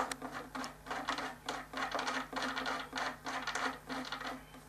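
White plastic side bearing on a Dobsonian telescope base being turned by hand onto its bolt and lock nut, a quick run of small scratchy clicks and rubs against the board.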